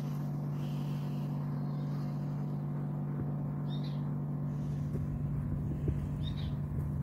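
Steady low background hum, with two faint bird chirps a few seconds apart.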